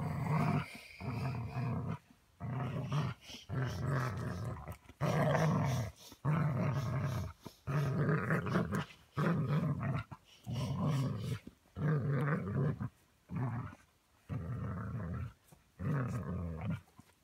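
Dog growling in play while tugging hard on a rope toy: a string of throaty growls about once a second, each under a second long, with short breaks between them.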